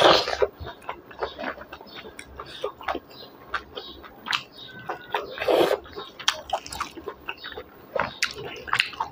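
Close-up chewing and wet mouth smacking of a person eating beef innards and rice by hand, with many small clicks and two louder, longer wet bursts, one at the start and one about five and a half seconds in.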